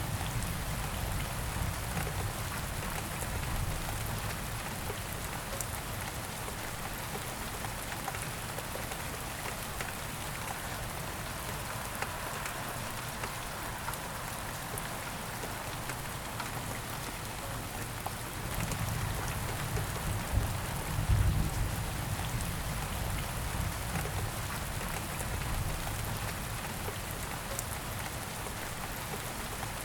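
Steady rain falling, an even hiss. A low rumble swells up about two-thirds of the way through and fades again.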